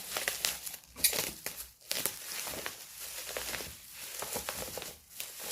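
Crinkling and rustling of packaging being handled and opened, with irregular crackles and sharp clicks, the loudest about a second in.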